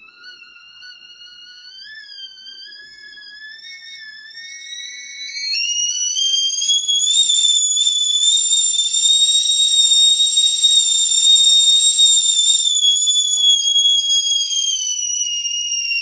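Old-style steel stovetop kettle whistling at the boil. The whistle starts as a quiet tone that climbs slowly in pitch, then jumps up to a much louder, very shrill whistle about five and a half seconds in, holds there, and sags a little in pitch near the end.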